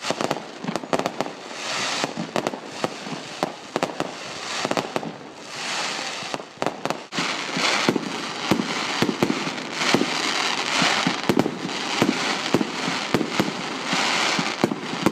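Aerial fireworks going off: many sharp cracks and bangs in quick succession, with long stretches of dense crackling.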